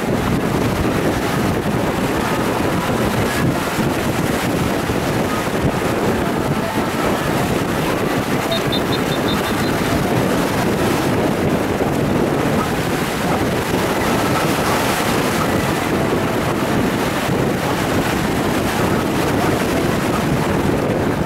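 Wind buffeting the microphone over the steady wash of small sea waves, an even, unbroken noise.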